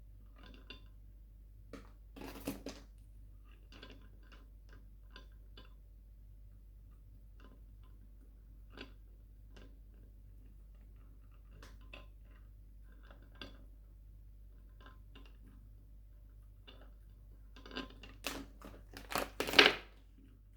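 Sweets being handled and eaten: scattered small clicks and taps, a short crackle a couple of seconds in, and a louder cluster of crackling near the end, the loudest just before it stops.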